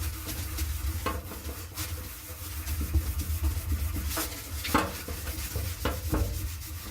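Acetone-soaked wipe rubbing and scrubbing on the metal drum of a clothes dryer to lift ink stains: irregular scrapes and swipes over a steady low hum.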